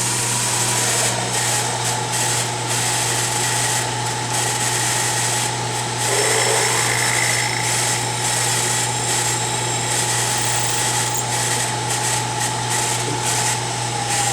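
Power drill running steadily with a whine, boring a pilot hole with a letter N drill bit into the pump squirter hole of a Holley carburetor main body. The bit's dulled tip is meant to stop it on the squirter bushing at the bottom. The tone changes for a while around six seconds in, and the drill stops at the end.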